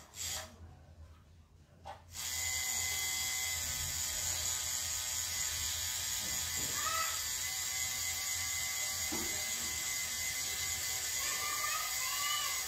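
Pen-style tattoo machine buzzing steadily as it shades skin. After a few brief blips it switches on about two seconds in and runs at an even, unchanging speed.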